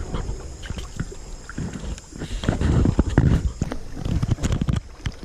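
Wooden canoe being paddled and poled through shallow creek water: uneven splashes and sloshing with scattered sharp knocks, busiest about halfway through.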